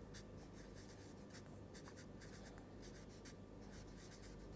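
Marker pen writing words on paper: a run of faint, quick scratching strokes.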